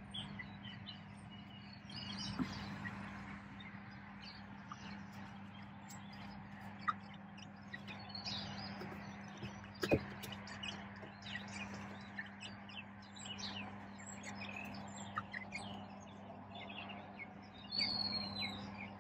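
Small birds chirping in short, scattered calls over a steady low hum, with a few sharp clicks or knocks.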